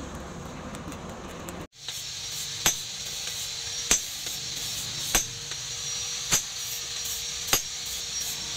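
Steady rushing noise of a coal forge fire, cut off suddenly under two seconds in. Then a hand hammer strikes the red-hot cleaver blade on a steel post anvil: five even blows about a second and a quarter apart, each with a short metallic ring.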